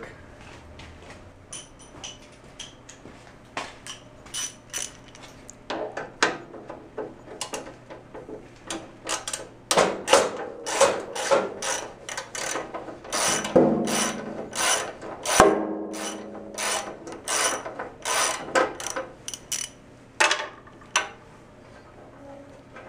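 Hand tools working a small nut on a Kohler K-series engine: irregular metallic clicks and clinks that come in quicker runs in the middle, with one sharp clank about fifteen seconds in that rings briefly.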